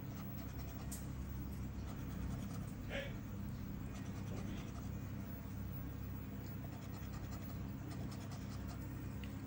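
A scratch-off lottery ticket being scratched: a faint, continuous scratchy rasp of the coating being rubbed away, over a steady low hum.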